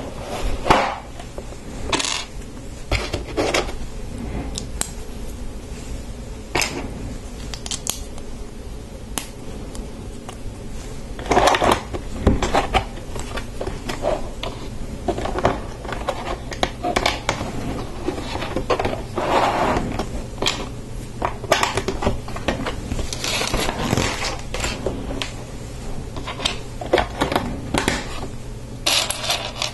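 Plastic Lego pieces clicking and clattering as they are handled and pressed onto a large molded plastic boat hull, with irregular sharp clicks and a few short rattling scrapes among the loose parts.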